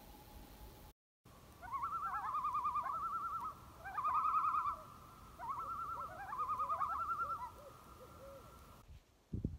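Bird calls: four phrases of a fast, quavering trill over a steady, held tone.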